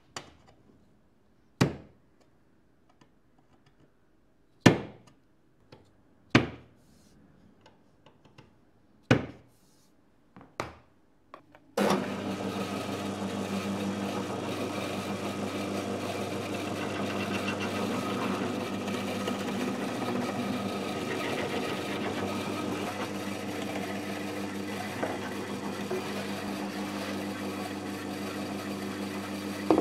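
About seven sharp taps, a second or more apart, as a small brass centre point marks hole positions through a template on a wooden case. About twelve seconds in, a pillar drill starts suddenly and runs steadily, drilling holes in the case's wooden edge.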